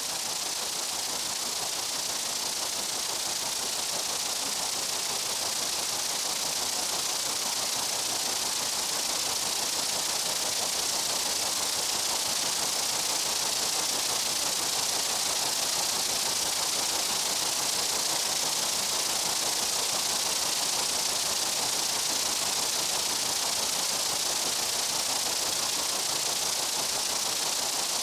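Steady, high hiss of insects buzzing in a summer meadow, blended into an even wash with no separate calls, beats or changes.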